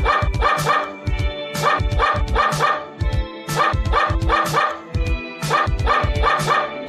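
Upbeat instrumental music with a steady beat, with short dog barks cut in time with it in quick groups of two or three.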